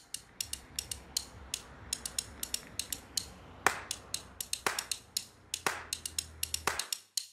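Rapid, uneven mechanical clicking over a faint low hum, with a heavier click about once a second in the second half; it all stops abruptly near the end.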